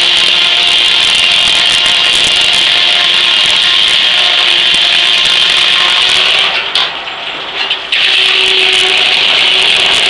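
Large steam-driven circular saw blade of an 1880s Gaar Scott sawmill ripping lengthwise through a big ash log, a loud steady high hiss of the cut. It eases off for about a second near seven seconds in, then bites again.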